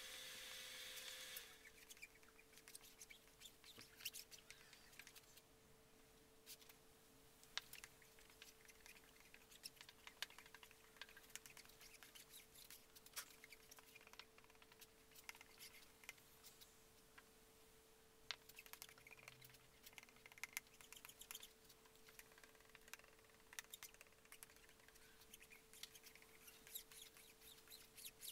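Faint, irregular scraping and clicking of a plastic spreader working epoxy into fiberglass cloth over plywood, over a steady faint hum. A louder hiss stops suddenly about a second and a half in.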